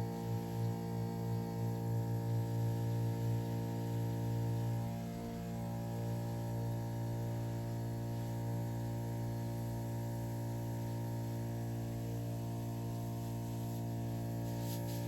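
Small motor of a powered pesticide sprayer running with a steady hum. Its level dips slightly about five seconds in.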